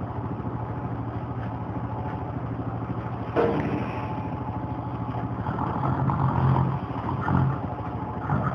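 Steady low hum of a small motor running with a fast, even pulsing, and a brief knock about three seconds in.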